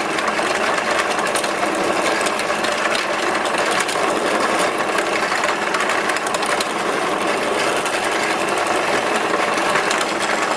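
Cheap benchtop drill press running steadily while a fine drill bit bores all the way through a wooden board, the motor's drone mixed with the chatter of the bit cutting wood.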